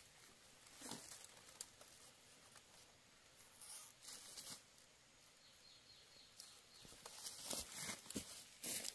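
Faint rustling with scattered light clicks and crackles, growing busier and louder in the last couple of seconds.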